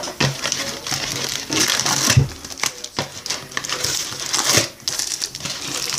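Wax-paper trading card packs crinkling and rustling as they are handled and pulled from a cardboard display box, with a few light knocks of packs against the box.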